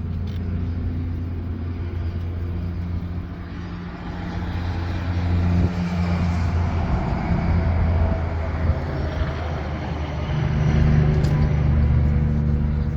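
Sanding on an MCI 5B coach's body panel: a steady low mechanical hum with a scratchy sanding noise that swells and eases in strokes, loudest about five to eight seconds in and again near the end.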